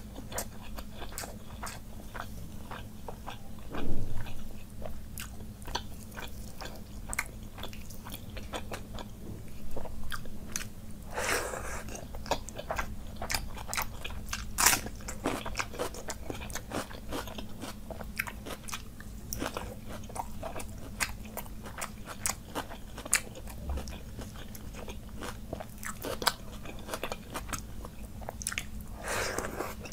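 Close-miked eating: wet chewing of soaked rice, broken by sharp crunches from bites of raw red onion, several of them loud. A faint steady hum runs underneath.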